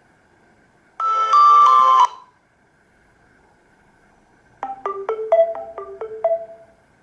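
Two short stock tones from a Nokia E66. First comes a loud synthesized chord of about a second, its top notes stepping down. Then, after a pause, a quick run of about eight marimba-like struck notes.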